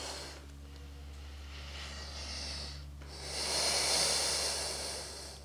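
A woman breathing slowly and audibly while holding a yoga pose: a softer breath, then a louder, longer one starting about three seconds in.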